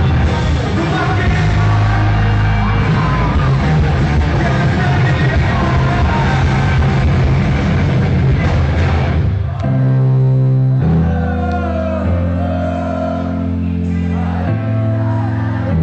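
Rock band playing live with a male singer. About nine seconds in, the dense full-band playing drops away to long held chords under the vocal.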